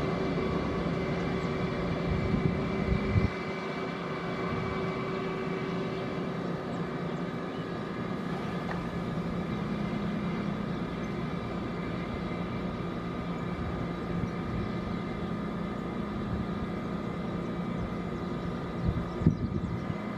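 Airbus A319 jet engines running at taxi power, a steady whine with several held tones over a constant hum. A low rumble under it stops suddenly about three seconds in, and a few short bumps come near the end.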